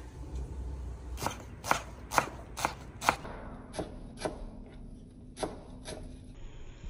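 A knife chopping on a cutting board, about two strokes a second. Five firm strokes are followed by a few lighter ones with a short pause.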